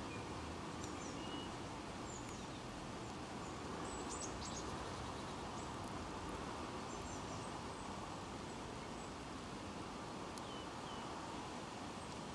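Small songbirds giving short, high chirps, a few at a time and scattered, over a steady outdoor background hiss.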